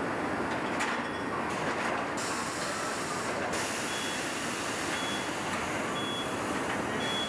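Steady mechanical din of a truck assembly-plant floor, with a short high electronic warning beep repeating about once a second in the second half.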